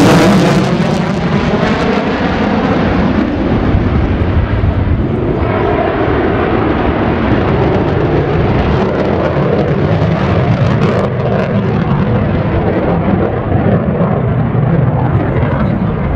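Mitsubishi F-15J Eagle fighter's twin turbofan engines, a loud jet roar, on afterburner as it pulls up at the start. The hissing top end fades over the first couple of seconds as the jet climbs away, leaving a steady low rumble.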